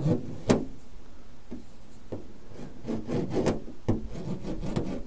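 Hands rubbing and pressing small stick-on sound-deadening pads onto the bare metal inner skin of a van's rear door, with a few sharp knocks on the panel, two in the first second and one near the end.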